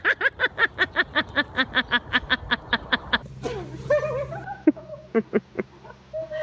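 A person laughing in a fast run of short 'ha' pulses for about three seconds. After a cut comes a low steady hum with a few short, sharp clicks.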